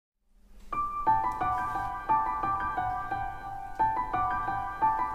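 Channel intro music: a bright melody of quick, separately struck notes in a repeating pattern, starting about half a second in.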